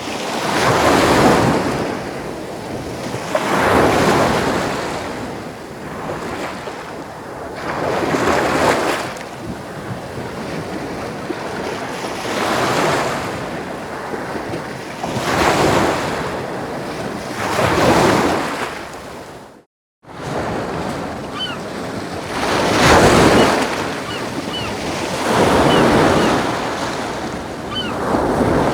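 Ocean waves breaking on a shore, the surf swelling and easing every few seconds. The sound drops out completely for a moment about two-thirds of the way in, then resumes with faint short high chirps over the surf.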